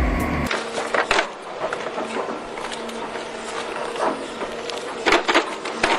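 Background music cuts off about half a second in. It is followed by irregular clicks and knocks of machinery working on wood over a faint steady hum, with a quick cluster of knocks near the end.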